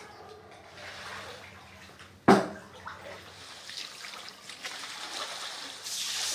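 Standing floodwater sloshing and splashing, with one sharp loud splash or thump about two seconds in. The water noise grows toward the end.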